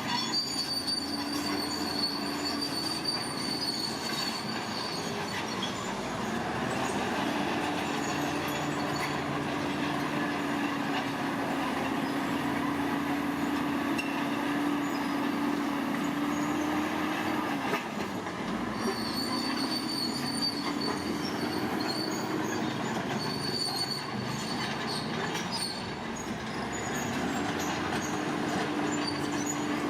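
Heavy earthmoving machinery working: a diesel engine runs steadily, its pitch dipping and recovering twice, with high-pitched metallic squealing near the start and again in the second half.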